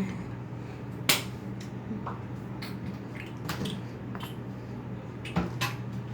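A few short, sharp clicks and light knocks, the loudest about a second in and a cluster a little past the middle, over a steady low hum.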